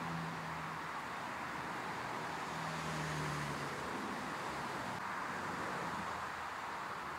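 Steady distant rushing of a twin-engine Airbus narrow-body airliner's jet engines as it turns onto the runway and lines up, with a low hum that swells in twice.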